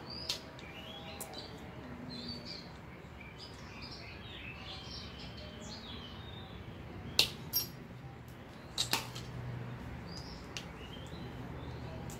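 Hand pliers snapping shut as they cut through an electrical power cable: two sharp snaps about seven seconds in and two more about two seconds later, with light rustle of the cable being handled. Birds chirp faintly in the background.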